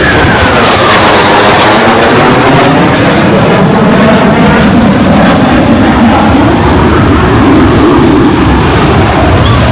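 Jet aircraft flying past, a loud and continuous rumble with a whine that falls in pitch over the first couple of seconds.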